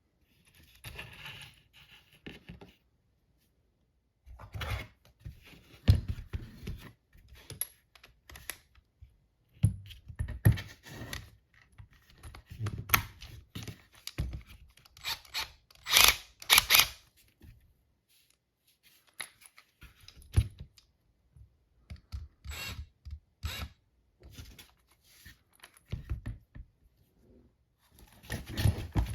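Irregular handling sounds of a universal socket adapter set being unpacked: packaging tearing and rustling, and small metal pieces clicking and clinking, with short silent breaks.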